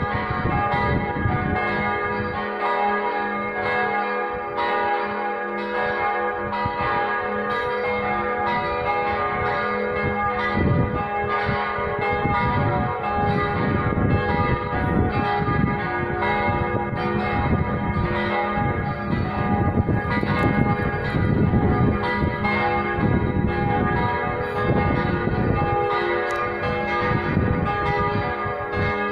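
Four church bells ringing together in a partial peal, their strokes overlapping in a continuous, steady ringing.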